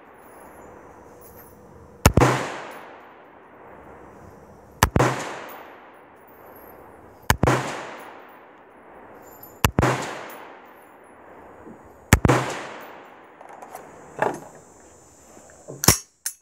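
AR-15-style rifle with an 18-inch Palmetto State Armory upper firing five single shots of 55-grain ammunition about two and a half seconds apart, each ringing on in an echo under the shooting-bench roof. Near the end, a few lighter clicks of the rifle being handled.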